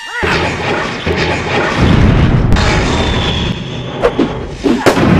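Dubbed-in magic-spell blast sound effect: a falling whistle, then a dense rumbling blast with a heavy low end that carries on throughout, with two sharp cracks about four and five seconds in.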